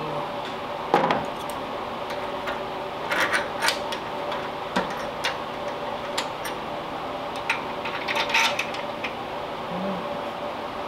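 Irregular metal clinks, knocks and scraping of hand tools and brackets being worked at a car's firewall, over the steady hum of shop fans.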